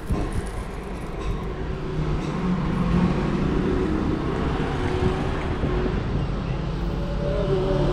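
Steady low rumble of street traffic, with faint voices in the background.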